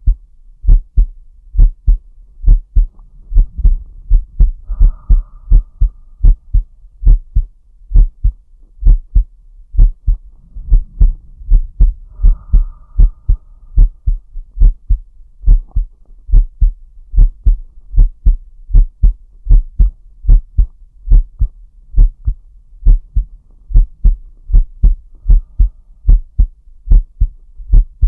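A human heartbeat picked up close to the chest, beating steadily at about one beat a second, each beat a double thump (lub-dub). Twice a slow, deep breath can be heard softly underneath it.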